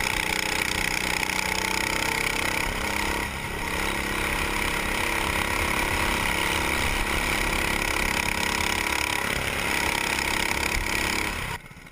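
Go-kart engine running at racing speed, heard from on board, its revs rising and falling through the lap with a brief dip about three seconds in. The sound cuts off sharply near the end.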